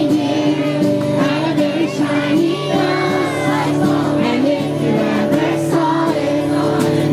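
A group of carolers singing a Christmas carol together, several voices holding sustained notes.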